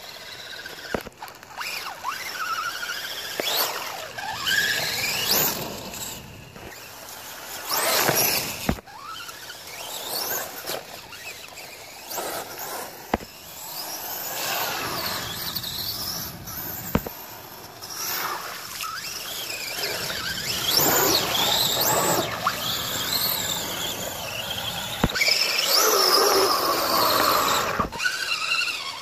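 Brushless electric motor of an RC rock crawler on a 3S battery, whining high as it revs up and down again and again. The pitch climbs and falls with the throttle.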